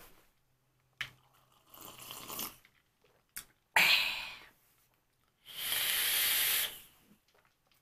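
A few quiet sips from a mug and a sharp breath out at about four seconds. Then a steady hiss lasting just over a second as air is drawn through a rebuildable dripping atomizer (RDA) on a box mod, a vape inhale.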